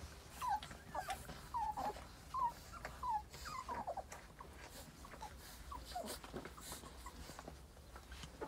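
A litter of young puppies squeaking and whimpering as they nurse and jostle at their mother's belly: short, falling squeaks, many in the first four seconds and fewer after. Soft clicks and rustling run under them.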